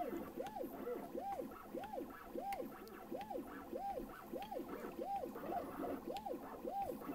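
Handibot CNC router's stepper motors whining as the diamond drag tool engraves a brass tag, each move a tone that rises and falls in pitch, about two a second in a steady rhythm.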